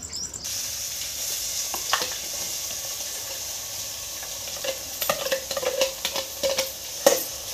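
Hot oil sizzling steadily in an aluminium pot as chopped onions and green chillies go in. From about five seconds in come sharp clicks and scrapes of a steel spoon against the bowl and pot rim as the rest is pushed in.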